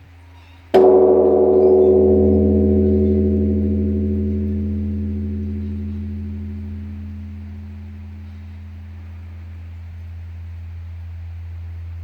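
Large bronze Korean Buddhist temple bell struck once, about a second in. A deep low hum is already sounding before the strike. The strike rings out with many overtones that die away over a few seconds, leaving the deep hum, which fades slowly and swells slightly near the end.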